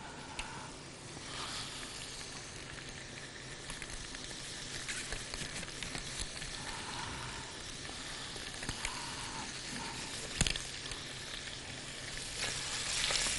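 Onion and greens sautéing in oil in a soup pot: a steady sizzle with scattered light clicks, one sharp knock about ten seconds in, and the sizzle getting louder near the end.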